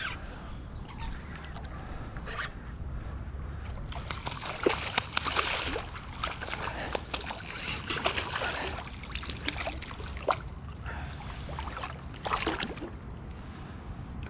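Small hooked snook splashing at the surface of shallow water as it is reeled in on a spinning reel, with water sloshing and a scatter of short clicks.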